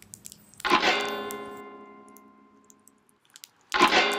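Background music: a guitar chord strummed twice, about three seconds apart, each left to ring out and fade.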